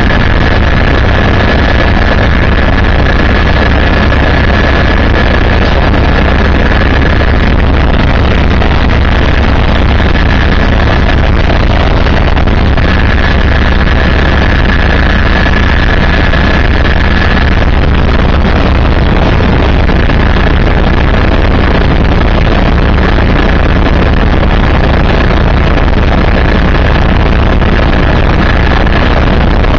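Helicopter in flight heard from inside the cabin: a loud, steady drone of rotor and engine with a thin high-pitched whine running over it.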